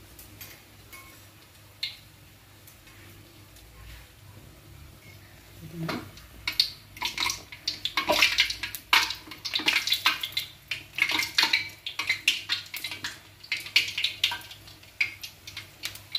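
Hot oil sizzling faintly around a fritter frying in a metal wok, then from about six seconds in, a metal ladle and fork clinking and scraping against the wok in quick, irregular knocks as the fritter is turned in the oil.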